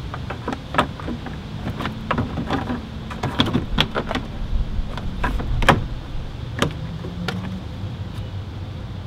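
Hard plastic clicking, knocking and rattling as the BMW E39's auxiliary fan shroud is pushed and worked into place around the fan, in irregular bursts that are loudest a little past the middle. A low steady rumble runs underneath.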